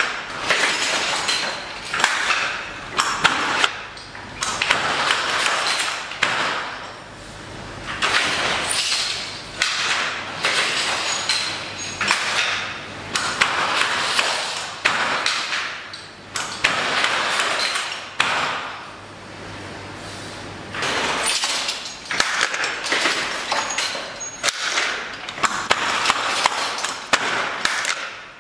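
Hand-operated jacquard loom weaving silk velvet, running through its repeated working cycles, about one every two seconds. Each cycle is a swell of rustling clatter, set off by sharp knocks. There is a short lull about two-thirds of the way through.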